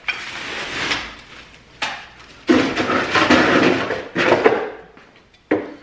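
Plastic bags rustling and ice and frozen items clattering as a freezer's contents are dumped into a trash bin, in several noisy bursts.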